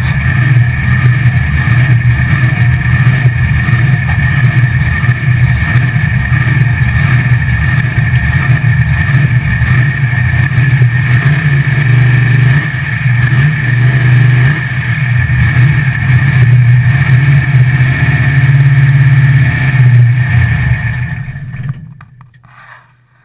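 Drag-race Chevy LUV truck's engine idling loud with a choppy, uneven beat, heard from inside the cab. Near the end it is switched off and dies away within about a second.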